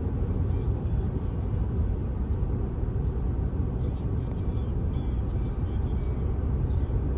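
Car driving on the road: a steady low rumble of engine and road noise that starts suddenly.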